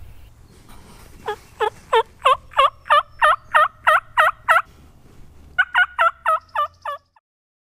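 Turkey yelps: a run of about eleven evenly spaced two-pitch yelps at roughly three a second, then a quicker, higher run of about seven. The sound cuts off suddenly near the end.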